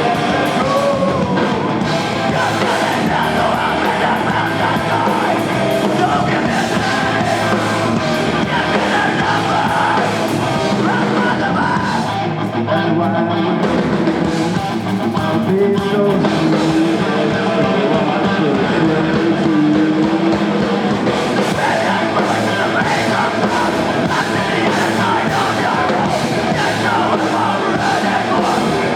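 Rock band playing live and loud, electric guitar and drums with a singer's vocals over them.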